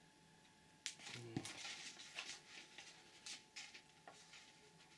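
Faint rustling and light ticking of paper as a thick comic book is held open and handled, with a sharper click about a second in.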